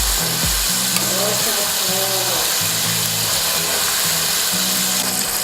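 Flour-coated chicken pieces frying in hot oil: a steady, even sizzle, over background music with a repeating bass line.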